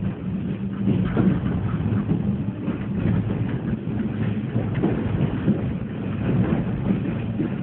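Passenger train heard from inside the carriage as it pulls out of the station: a steady low hum with irregular knocks and rattles from the running gear.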